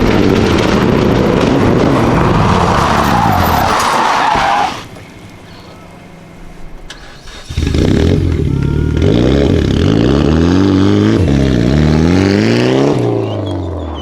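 Rally cars racing past at full throttle. The first passes with a loud engine and tyre noise and cuts off about five seconds in. A second arrives a couple of seconds later, its engine revs climbing and dropping through repeated gear changes before fading near the end.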